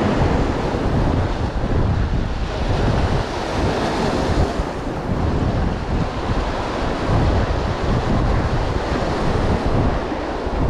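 Wind buffeting the microphone, with sea surf washing behind it; the rumble rises and falls unevenly.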